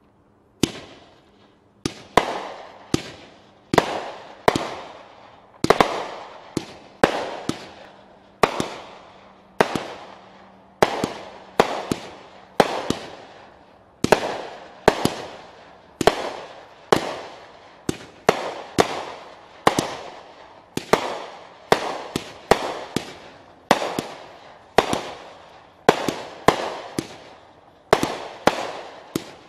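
100-shot firework cake (barrage) firing shot after shot, roughly one and a half shots a second, each a sharp report that trails off quickly. The firing starts under a second in and keeps an even pace throughout.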